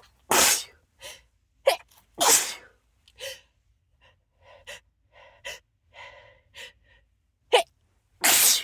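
A person sneezing hard three times: right at the start, a little after two seconds in, and near the end. Quick catching breaths and small gasps come between the sneezes. It is an allergic sneezing fit set off by dust.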